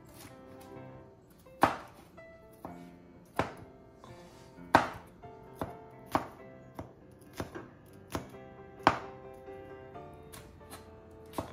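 Kitchen knife knocking on a cutting board in slow, irregular strokes, about a dozen, as a serrano chili is minced into very small pieces. Background music plays underneath.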